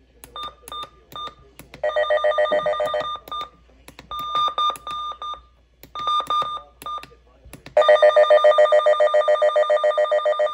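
Weather radio alert siren under test: spells of short electronic beeps and bursts of a fast-pulsing alarm tone, then a loud alarm pulsing about eight times a second that carries on for a few seconds near the end.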